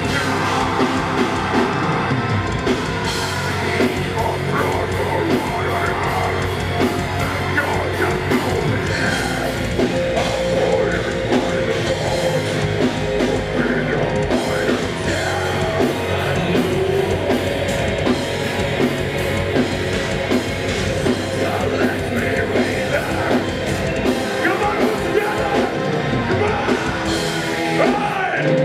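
Symphonic death metal band playing live: distorted electric guitars, a drum kit and vocals, loud and continuous.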